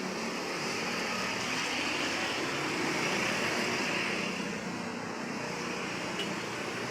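Road traffic: vehicles running past, with a swell of engine and tyre noise about three to four seconds in.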